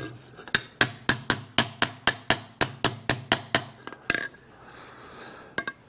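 A hammer tapping on a metal part: a quick, even run of about a dozen sharp taps, about four a second, then a single tap and a close pair of taps near the end.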